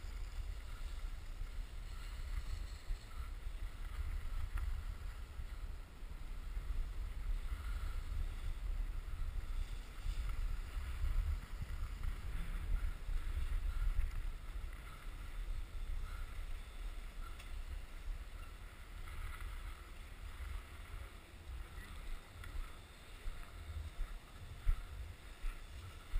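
Wind buffeting a GoPro action camera's microphone as a skier runs down a groomed piste, a low steady rumble with the hiss of skis sliding over snow. A few sharp knocks come near the end as the skier slows into the lift line.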